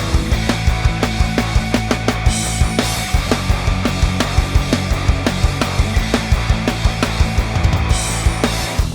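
Rock music with a steady, fast drum beat and guitar.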